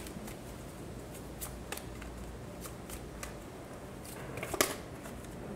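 Tarot deck being shuffled and handled by hand: soft scattered card clicks and flicks, with a cluster of quick snaps and one sharper slap about four and a half seconds in.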